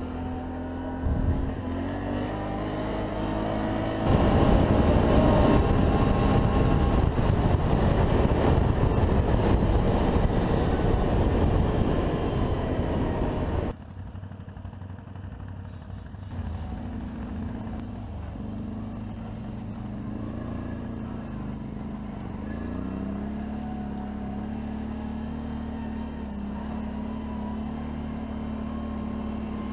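Can-Am ATV engine running steadily while riding along dirt tracks, its pitch wavering with the throttle. A louder rushing noise over the engine in the first half drops away abruptly about halfway through.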